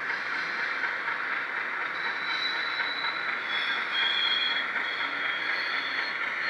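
HO scale model diesel locomotive and its cars running along the track: a steady whirring rumble of the motor and wheels on the rails, with thin high squeals that come and go.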